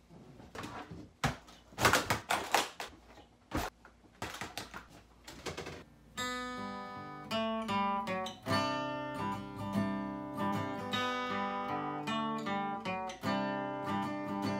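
Knocks and rustling of someone sitting down and handling an acoustic guitar, then the acoustic guitar starts playing chords, picked and strummed, about six seconds in.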